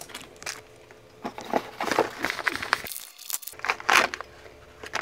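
Plastic packaging crinkling and rustling as a small anti-static bag and a padded mailer are handled and opened by hand, in irregular bursts with a short pause midway.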